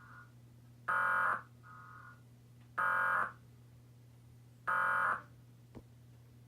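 Emergency Alert System SAME digital header sent three times: three short, raspy electronic data bursts about two seconds apart, with fainter blips between them. The header opens an EAS alert, here a flash flood warning.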